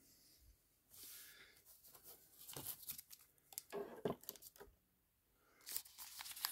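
Wrappers of trading-card packs being handled, crinkling and tearing in several short, faint rustling bursts.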